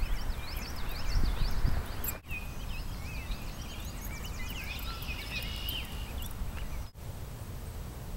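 Outdoor birds chirping and singing over a low rumble that is loudest in the first two seconds. The sound breaks off abruptly for a moment twice.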